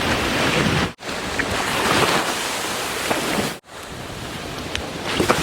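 Ocean surf washing with wind buffeting the microphone, in three stretches cut apart by abrupt edits about a second in and again about two-thirds of the way through.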